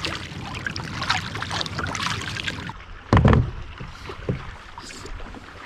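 Water splashing and lapping against a sit-on-top fishing kayak. A single loud thump on the hull comes about three seconds in, and a smaller knock follows a second later.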